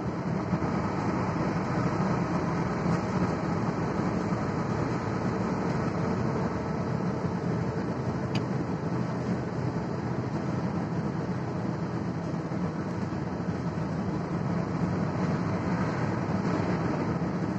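Steady engine and tyre noise of a moving vehicle, heard from inside its cabin while driving through a tunnel.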